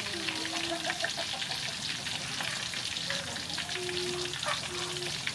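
Battered vegetables deep-frying in hot oil: a steady, dense crackle and sizzle.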